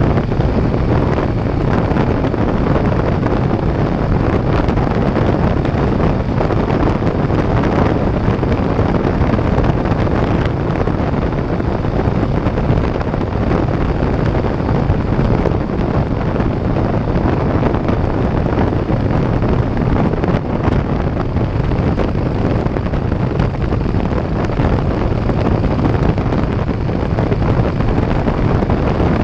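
Steady wind roar on a GoPro camera's microphone from a Harley-Davidson motorcycle riding at highway speed, with the bike's running noise buried underneath.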